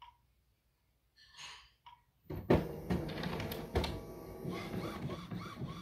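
Epson WF-3720 inkjet printer restarting after a firmware flash: a few faint clicks, then from about two seconds in its print mechanism clatters and whirs steadily as it initialises.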